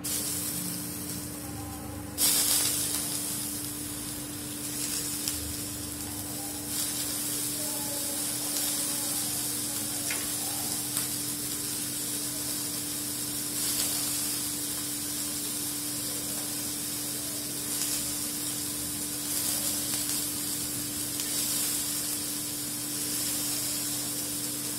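Raw prawns frying in shallow oil on a flat pan: a steady sizzling hiss that turns louder about two seconds in, as more prawns go into the hot oil. A steady low hum runs underneath.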